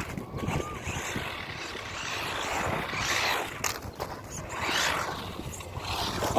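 Fayee FY03 Desert Eagle RC buggy running on asphalt: its battery-powered electric motor and gears whir along with tyre noise. The sound swells twice as the buggy speeds up or passes close.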